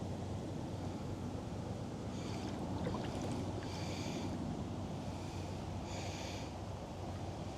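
Steady rushing noise of river water around a wader in the current. Three short high-pitched calls sound about two seconds apart, with a few faint clicks about three seconds in.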